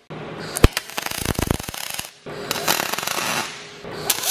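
Electric welding arc laying a bead on an aluminium sleeve: a crackling hiss with sharp pops, in two runs broken by a short pause about two seconds in.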